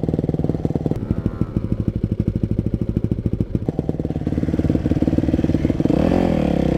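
Enduro dirt bike engine idling close by with a pulsing beat, briefly revved up near the end.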